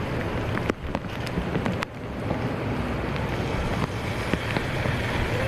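Wind buffeting the microphone, a steady uneven low rumble with a few brief clicks scattered through it.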